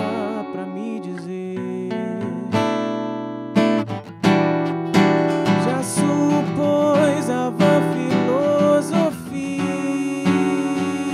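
Acoustic steel-string guitar strummed and picked in a slow song, accompanying a male voice singing. There is a short break in the playing about four seconds in.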